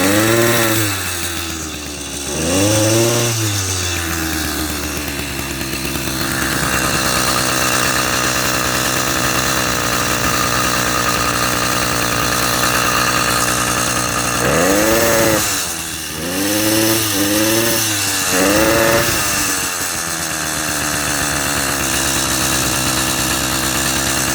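80cc two-stroke motorized-bicycle engine running steadily and revved in short throttle blips, twice near the start and four times in the second half, each rising and falling in pitch. On acceleration it makes a gargling, bubbling sound, the sign of a combustion problem that leaves the engine weak and slow to pull.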